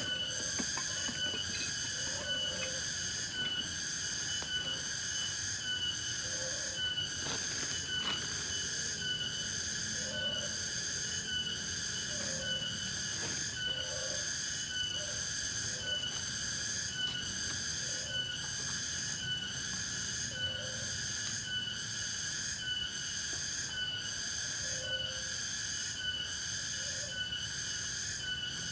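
Forest insect chorus: a shrill, high-pitched call that pulses a little faster than once a second without let-up. A short lower call sounds every couple of seconds, and there are a few faint knocks about seven seconds in.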